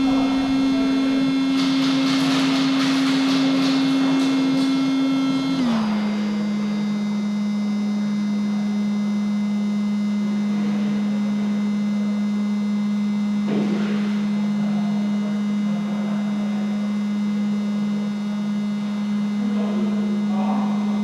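Battery-powered anti-fog fan in airsoft goggles buzzing steadily close to the microphone; its pitch drops slightly about six seconds in.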